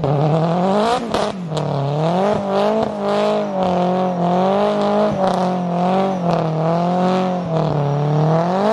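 Mazda RX-7 engine held at high revs during a burnout, its rear tyres spinning. The pitch wavers up and down about once a second and climbs sharply near the end.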